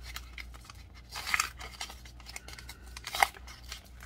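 Foil wrapper of a Pokémon trading card booster pack crinkling and tearing as it is opened by hand, in two main bursts, about a second in and again about three seconds in.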